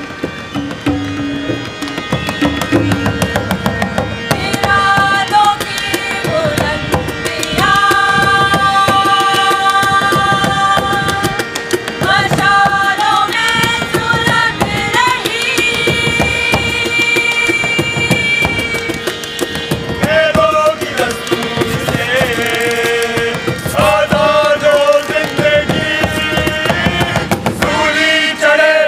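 Live Indian music: a voice sings long held notes that bend and glide, over a tabla beat and a steady harmonium drone.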